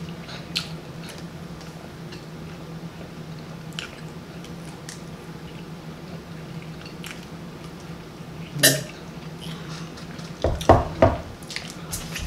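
Close-miked chewing, with scattered small mouth clicks over a steady low hum, and a few louder clicks and knocks: one about eight and a half seconds in and a short cluster around eleven seconds.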